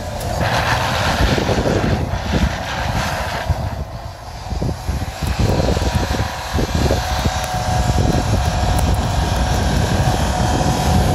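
Subaru WRX's turbocharged flat-four engine held at high revs in a steady drone while the car drifts, wheels spinning through deep snow. It dips briefly about four seconds in.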